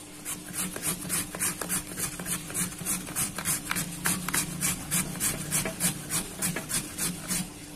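A carrot being grated on a plastic julienne grater with metal blades: a run of regular rasping strokes, about three a second.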